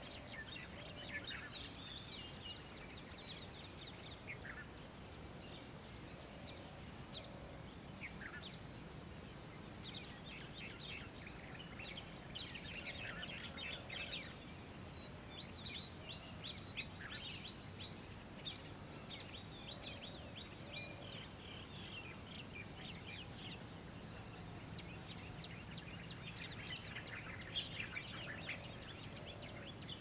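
Morning birdsong: many small birds chirping and trilling at once in quick overlapping calls, over a steady low background hum.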